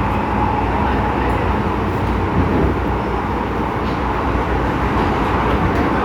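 Interior running noise of an MTR M-train, a Metro-Cammell electric multiple unit, in motion: a steady rumble of wheels on rail with a constant hum.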